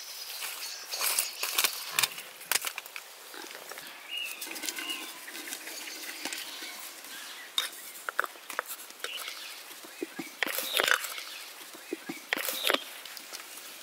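Scattered clinks and knocks from cooking at a large aluminium pot of boiling water over a wood fire: the metal lid is lifted off and salt is tipped into the water.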